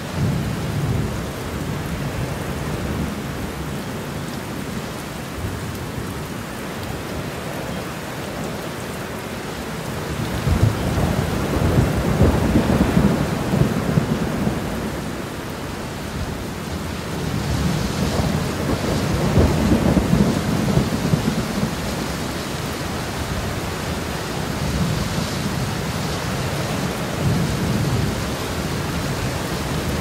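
Steady rain with thunder rumbling: two long low rumbles, one starting about ten seconds in and another around eighteen seconds, and fainter rumbles near the start and near the end.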